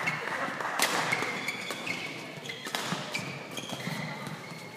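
Badminton rally: two sharp racket strikes on the shuttlecock about two seconds apart, with short high shoe squeaks on the court mat.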